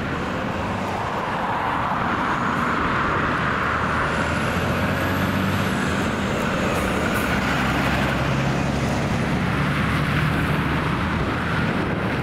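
Jet engines of a Boeing 737-800 on final approach, a distant steady rumble that slowly grows louder, with wind blowing on the microphone.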